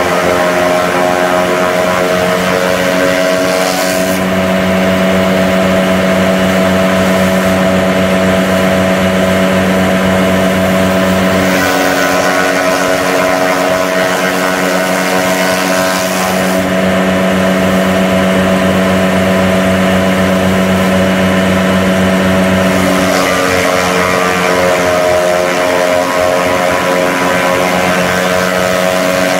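John Deere 3350 tractor's diesel engine running steadily at working speed, driving a PTO forage chopper as green stalks are fed through it. The engine note shifts slightly several times as bundles go through, with a hissing rush from the chopper that comes and goes.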